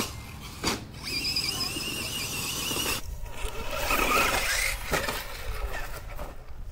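Electric motor and gearbox of a radio-controlled toy truck whining, the pitch wavering and rising as the throttle is worked. There is a short knock near the end as the truck tips over.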